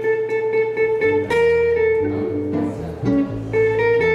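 Archtop jazz guitar playing chords over an Eminence upright bass, with no vocal.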